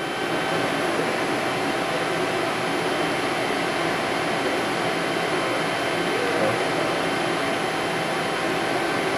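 Fryer MC-60 vertical machining center running with its spindle turning at 500 RPM: a steady whir with a few faint steady tones.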